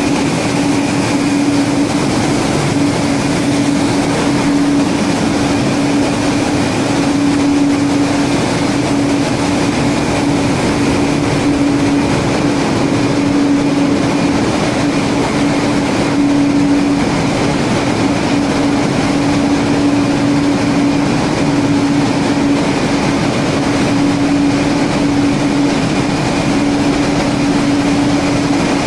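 Engine room machinery of a dual-fuel diesel-electric LNG carrier running continuously: a loud, steady rushing din with a constant hum at one pitch running through it.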